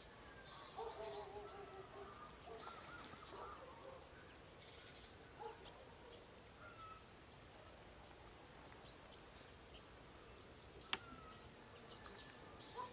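Faint outdoor ambience with distant birds calling now and then in short warbling phrases, and a single sharp click about eleven seconds in.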